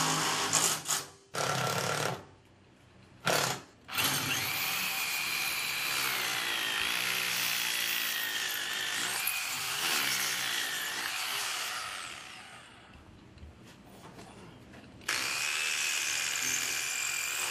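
Cordless drill running: a few short bursts, then two long runs, the first from about four seconds in to about twelve, the second starting about fifteen seconds in, with a whine that wavers in pitch as the motor works under load.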